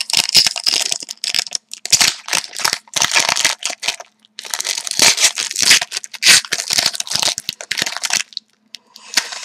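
A hockey card pack's wrapper being torn open and crinkled by hand, in crackly bursts with short pauses: the pack is hard to get open.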